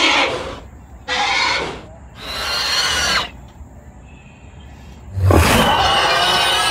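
Dinosaur roar and screech sound effects, several separate calls: one tails off at the start, two shorter calls come about a second and two seconds in, and a longer, louder roar with a deep thump at its start comes about five seconds in.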